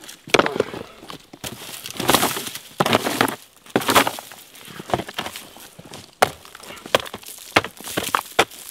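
Boots crunching over loose rocks and gravel, with a string of sharp knocks, clatters and scrapes as plastic Maxtrax recovery boards are handled and knocked against the stones.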